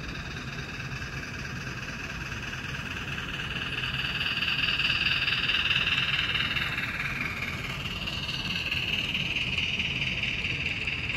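HO scale model steam locomotive and freight cars running past on the layout's track, a steady rolling sound of wheels on rails. It grows louder as the locomotive passes closest, about four to six seconds in, then eases a little as the string of cars rolls by.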